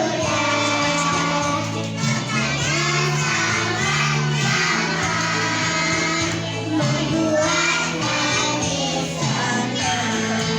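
Children singing together over backing music with held low instrumental notes.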